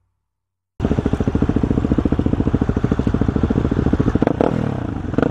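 Near silence for about the first second, then a dirt bike engine cuts in suddenly, idling steadily with rapid, even firing pulses, with a couple of short clicks near the end.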